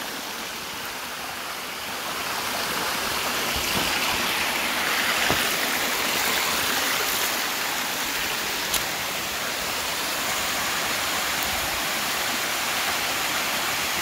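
Waterfall on a mountain river: water rushing steadily down over rock, growing a little louder about two seconds in.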